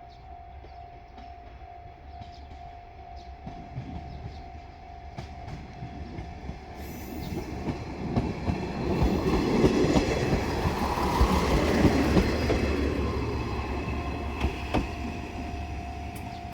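JR Shikoku diesel railcar passing over a level crossing: its engine and wheel noise build to a peak about ten to twelve seconds in, with clacks from the wheels over rail joints, then fade. The crossing's warning bell rings steadily throughout.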